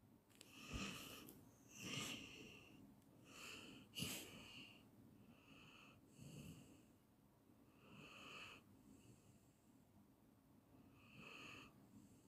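A dog snoring: a string of soft, wheezy breaths with a high whistling note, coming every one to three seconds.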